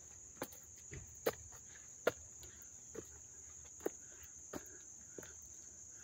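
Crickets chirping in a continuous, even high-pitched chorus. Soft footsteps knock irregularly beneath it, about once a second.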